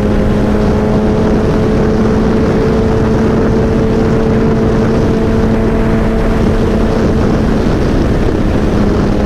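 Suzuki Hayabusa's inline-four engine running at a steady pitch while cruising, with wind rushing over the microphone.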